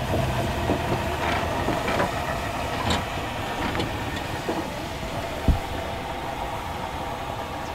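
Miniature 15-inch-gauge steam locomotive moving slowly, with a steady hiss of steam escaping low down near its cylinders and a single sharp knock about five and a half seconds in.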